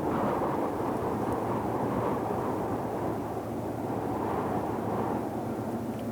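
Deep-ocean white noise: a steady, dark, low noise with slight slow swells.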